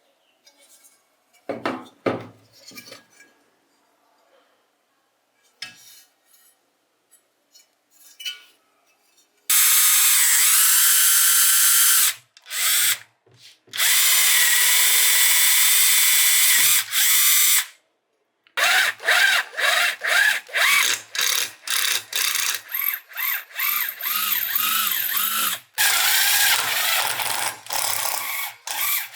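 A few light metal clinks, then from about ten seconds in a handheld electric drill-type power tool running loud in long runs, later switched on and off in many short bursts, working on rusted bench grinder parts during cleaning.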